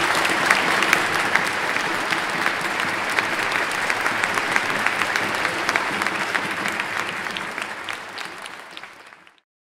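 Audience applauding, a dense steady clapping that fades near the end and stops.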